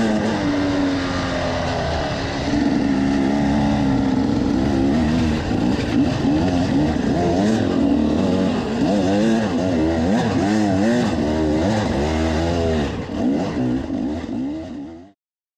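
Enduro dirt bike engines heard on board, revving up and down as the bikes ride a trail, with quick rises and falls in pitch in the second half. The sound cuts off abruptly near the end.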